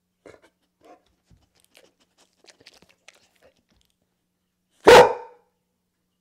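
A single loud bark from a grey pit bull-type dog, about five seconds in, short and sharp. The dog barks for a treat held up in front of it.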